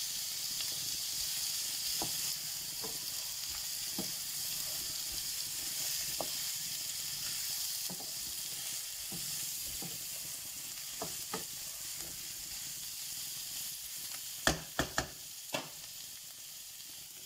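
Chicken seekh kebabs, onions and tomatoes sizzling in a non-stick frying pan while a wooden spatula stirs them, with scattered scrapes and taps. There are a few sharp knocks near the end.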